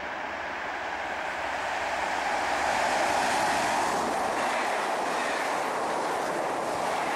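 Electric passenger train, an NS ICM unit with double-deck coaches, passing close by at speed. The rush of wheels on rail swells to its loudest about three seconds in as the coaches run past, then holds steady.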